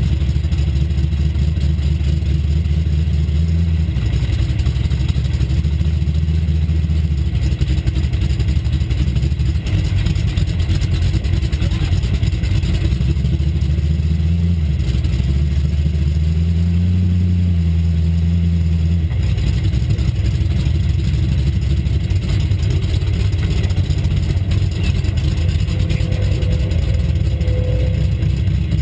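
Dirt-track race car engine idling, heard from inside the cockpit, with the revs rising and falling a few times and held a little higher for a few seconds around the middle.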